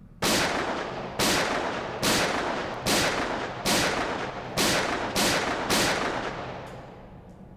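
A gun fired eight times in steady succession, roughly a shot every three-quarters of a second, each shot followed by a long decaying echo.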